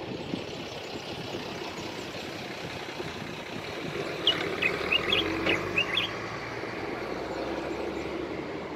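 Common bulbul chirping: a quick run of about eight short, sharp notes in under two seconds, midway through. Under it, a steady rumble of road traffic.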